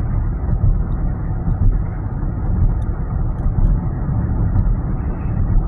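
Strong wind buffeting the microphone: a loud, gusty low rumble that rises and falls unevenly.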